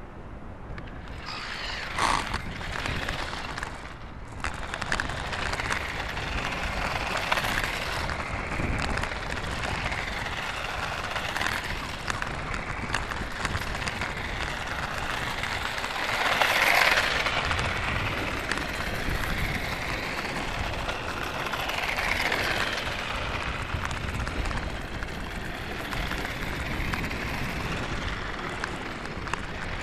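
Converted My Little Pony Equestria Girls radio-controlled toy car and its camera trailer running over coarse tarmac: a continuous rough rumble and rattle of small wheels, with wind noise on the microphone. It swells louder about halfway through and again a few seconds later.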